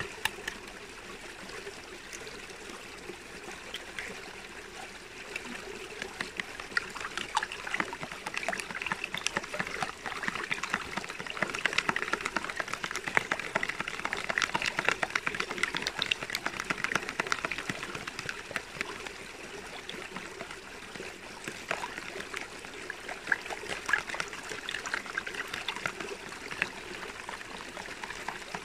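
Running water trickling and babbling steadily, a little louder through the middle stretch.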